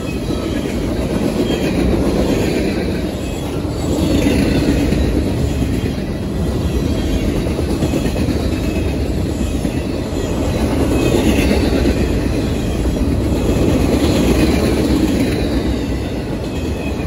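Tank cars and boxcars of a CSX manifest freight train rolling past close by: a steady rumble and clatter of steel wheels on rail that swells and eases as each car goes by, fading a little near the end as the last cars approach.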